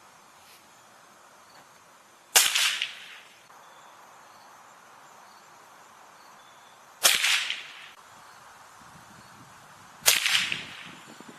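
Three shots from a Gamo Silent Cat .177 spring-piston air rifle, each a sharp crack with a short fading tail, about two, seven and ten seconds in.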